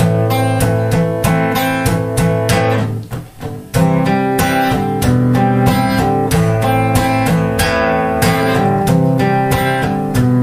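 Acoustic guitar strummed in a steady rhythm, an instrumental break between sung lines, with a brief gap in the strumming about three seconds in.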